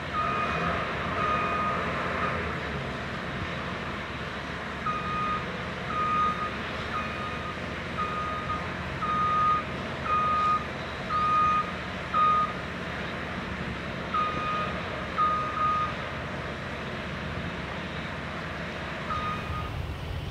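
Backup or motion alarm on site machinery beeping about once a second in runs with gaps, over a steady low engine rumble.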